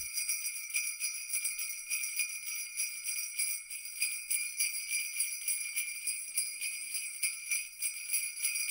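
Sleigh bells jingling continuously in a fast, even shake, a Christmas sleigh-bell sound effect.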